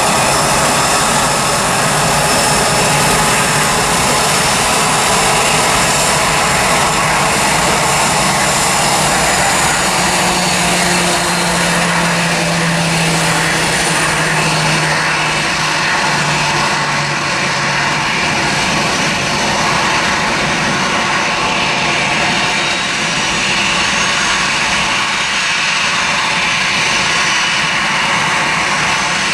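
Boeing 737 jet engines running at low taxi power: a steady whine and rush that never spools up to takeoff thrust. A low hum comes in about a third of the way through and fades again before two-thirds.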